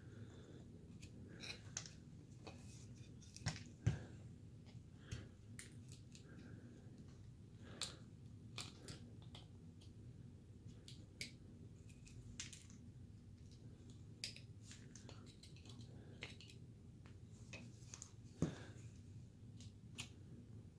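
Carving knife slicing basswood by hand: faint, irregular small clicks and snicks as shavings are cut, with a couple of louder snaps about 4 seconds in and near the end.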